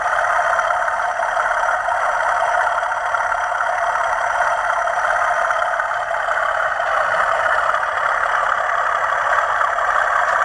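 Model locomotive sound decoder (Hornby TTS) playing a diesel engine running sound through the model's small onboard speaker. It is steady and even, with no deep bass.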